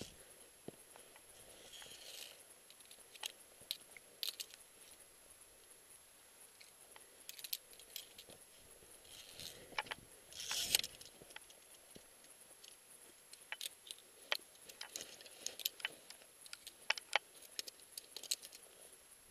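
Metal climbing gear clinking and jingling, as via ferrata carabiners and slings knock against the steel safety cable and the rock, with irregular short clicks and a few brief scrapes; the loudest scrape comes about ten seconds in.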